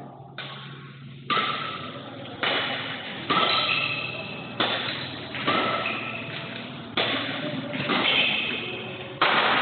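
Badminton rackets hitting the shuttlecock in a fast rally: about nine sharp strikes, roughly one a second, each echoing in the large hall.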